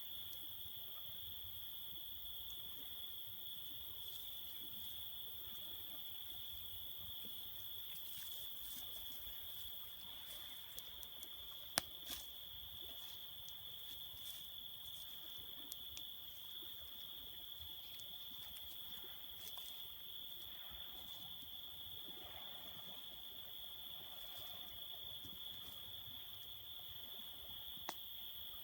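Night insects chirring in one steady, continuous high-pitched drone, with a few sharp clicks, the loudest about twelve seconds in.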